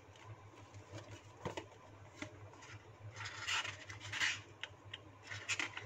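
Faint rustling and rubbing of a paperback book being handled and opened, its cover and pages brushing against the fingers. A couple of faint taps come a second or two in, then several short soft swishes of paper in the second half.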